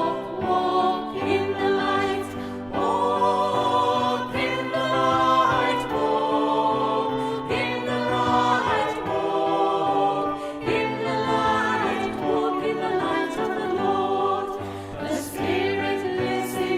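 Choir singing a sacred piece, held notes with vibrato changing every second or so.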